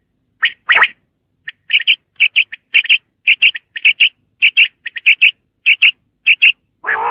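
Common quail calling: short, sharp, clipped notes in quick groups of two or three, repeated over and over at a steady pace, with a louder, fuller note at the very end.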